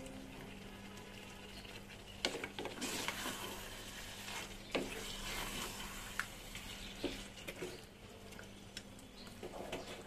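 Mutton pieces sizzling in spiced oil in a nonstick pan, braised uncovered (bhuna) while a flat spatula stirs and scrapes through them so they don't stick. A few sharp knocks of the spatula against the pan stand out over the steady sizzle.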